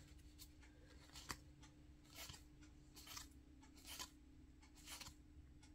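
Faint soft flicks of baseball trading cards being slid one by one from the front of a stack to the back, about one card a second.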